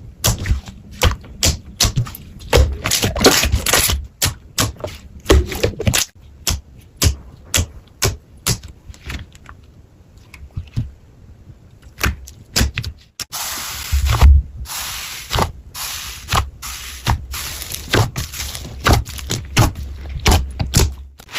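Slime being squeezed and poked by hand, a fast, irregular string of crisp clicks and crackles. The crackling thins out in the middle, then picks up again after a break a little past halfway, now over a steady hiss.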